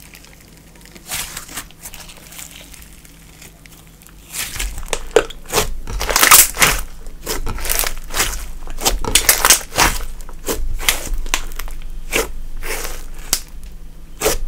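Slime being kneaded, stretched and pressed by hand, giving a run of sticky pops and crackles. The sounds are sparse at first and grow denser and louder from about four seconds in.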